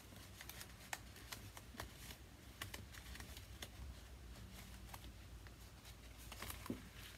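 Faint, irregular clicks, taps and light rustles of paper pieces and card being handled and sorted through by hand.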